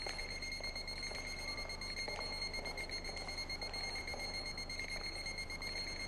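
A steady high-pitched whine with a low hum beneath it and faint scattered ticks.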